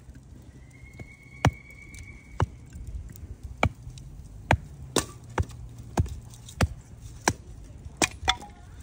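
A series of about a dozen sharp knocks or clacks, irregularly spaced roughly every half second to a second, over a low steady hum.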